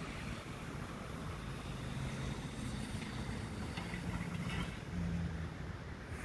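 Low engine rumble of a box truck driving over the level crossing, its pitch stepping up and down, over a steady outdoor background hiss.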